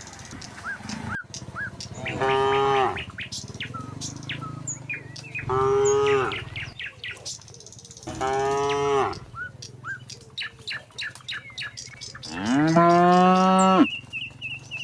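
Cattle mooing four times, each moo about a second long; the last is the longest and loudest. Small birds chirp between the moos.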